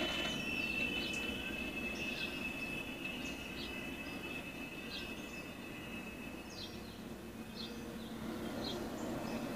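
Norfolk Southern stack train's wheels squealing on the Horseshoe Curve: a steady high-pitched flange squeal that fades out over the first seven seconds, with short high chirps throughout over a low rolling rumble. It is heard through a computer's speaker from a live railcam stream.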